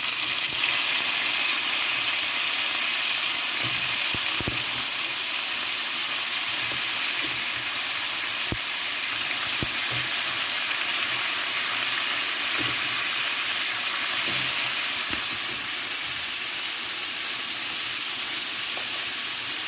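Blanched chicken feet frying in hot oil with garlic, ginger and whole spices: a steady sizzle, with a few light knocks scattered through.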